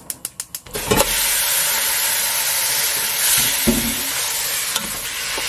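Diced soup beef frying in hot sesame oil in a large stainless steel pot, starting suddenly about a second in and sizzling steadily while a wooden spoon stirs it, with a few low knocks of the spoon midway. It opens with a quick run of sharp, evenly spaced ticks, about six a second.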